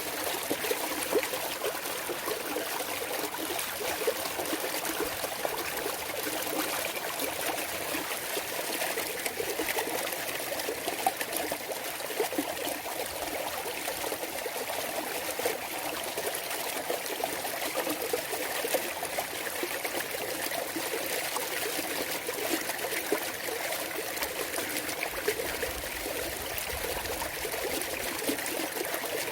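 Clear mountain valley stream flowing and trickling over rocks, a steady babbling with small splashes throughout.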